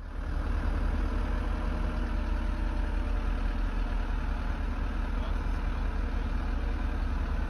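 Mercedes Vario 818 truck's diesel engine running steadily, a deep, even drone.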